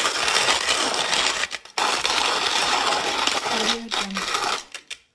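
Hand-cranked coffee grinder crushing beans in its burrs: a loud, gritty grinding with a brief break about one and a half seconds in, trailing off near the end.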